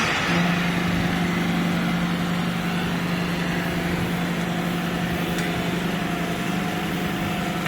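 Hydraulic scrap metal baler's power unit, an electric motor driving the hydraulic pump, running with a steady hum while the ram pushes forward.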